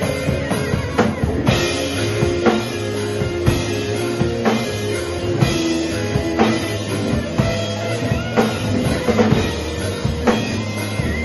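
Rock band playing live, with a drum kit keeping a steady beat of about two hits a second under electric guitars and bass.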